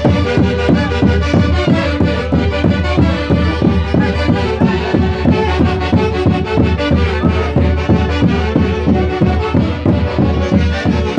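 Andean band music in the Santiago style from the Huancayo region, played by a full band with a quick, steady beat.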